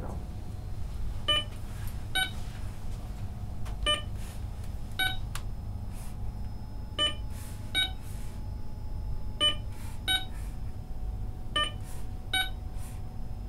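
Short electronic beeps from the computer running a stylus reaching test, coming in five pairs, the two beeps of each pair under a second apart, over a steady low hum.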